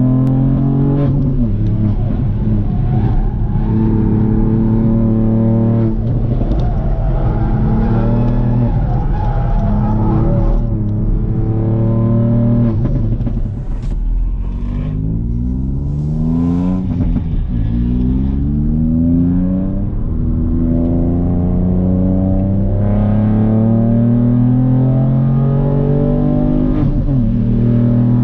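Ford Fiesta ST Mk8's turbocharged 1.5-litre three-cylinder engine under hard acceleration, heard from inside the cabin. The revs climb in pitch and drop back at each upshift several times over, with a rougher, slightly quieter stretch in the middle as the car turns through a corner, then pull up through the gears again.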